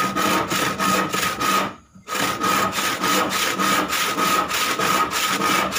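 Freshly hand-filed handsaw cutting across a piece of hard timber in quick, even back-and-forth strokes, about four a second, with a short break about two seconds in.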